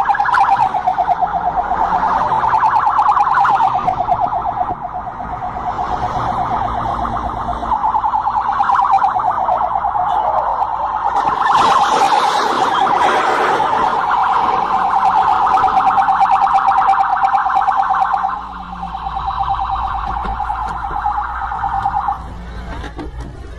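Police siren with a fast warble, sounding steadily. About halfway through, a loud noisy crash burst rises over it as the police SUV rolls over. The siren drops in level a little later and cuts off near the end.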